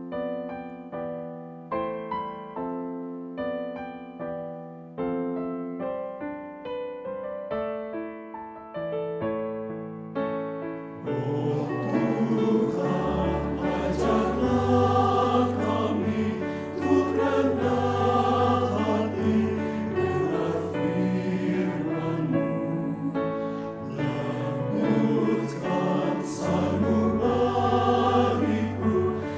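A slow piano introduction of single notes that ring and fade; about eleven seconds in, a mixed choir of men and women comes in singing a hymn in Indonesian, with the piano accompanying.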